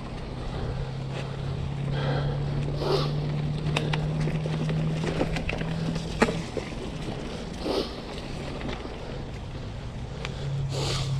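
A mountain bike being ridden on a dirt trail. A steady low hum runs for the first six seconds and returns near the end, with a few sharp knocks and rattles over wind on the microphone.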